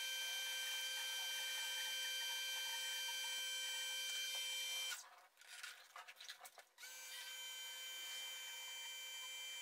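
Campbell Hausfeld electric pressure washer's universal motor and pump running with a steady high whine, which stops about five seconds in and starts again nearly two seconds later.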